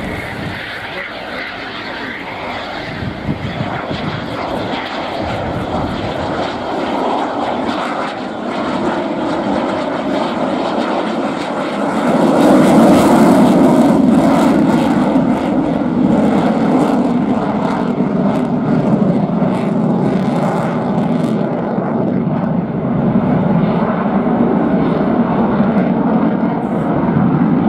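Eurofighter Typhoon's twin EJ200 turbofans in a flying display, a steady jet noise that builds gradually, then gets suddenly louder about twelve seconds in and stays loud.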